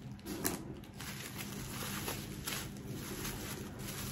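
Wrapping paper rustling and crinkling in short, irregular bouts as a wrapped gift is unwrapped by hand.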